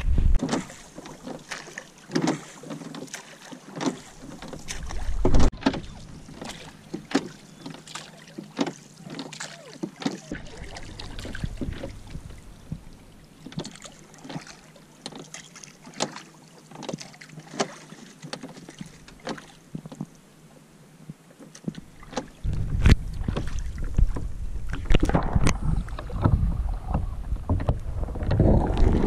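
Small dinghy being rowed across calm water: regular knocks and splashes of the strokes about once a second. From about two-thirds of the way through, a louder low rumble of wind on the microphone joins in.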